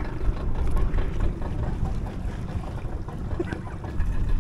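Wind buffeting the microphone: an uneven low rumble, with a few faint small clicks.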